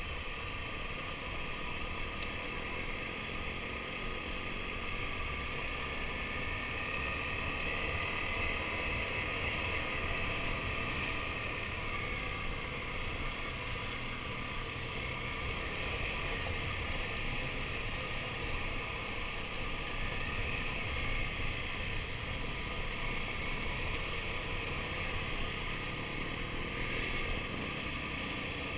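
Motorcycle engine running steadily at trail-riding speed, its note rising and falling a little.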